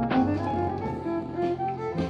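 Instrumental music with a steady low bass line, played from a vinyl LP on a turntable through a home-built valve RIAA phono preamp and valve amplifier.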